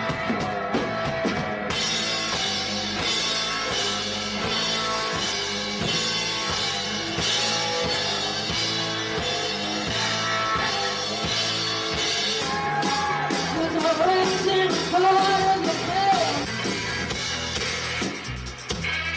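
A rock band playing live, with drum kit, guitar and bass driving a steady beat; a woman's lead vocal comes in about two-thirds of the way through.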